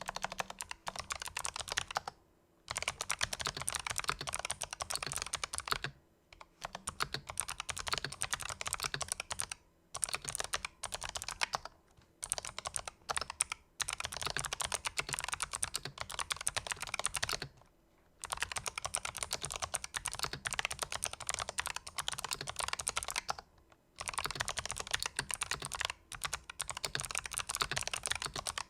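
Fast typing on a Razer Huntsman Elite keyboard with fully lubricated Razer purple clicky optical switches, in runs of several seconds broken by short pauses.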